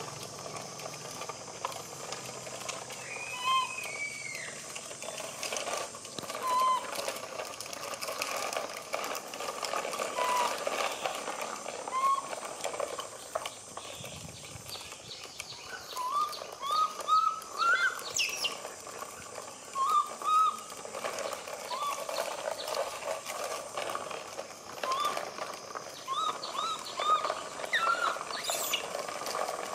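Short animal chirps, one at a time in the first half and in quick runs of several later on, over a steady outdoor hiss.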